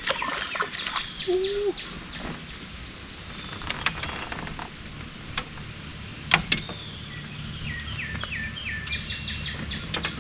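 A hooked bream splashing at the surface as it is swung out of the water, then a few sharp knocks and clicks as it is handled. Songbirds sing in the background, with repeated short notes in the second half.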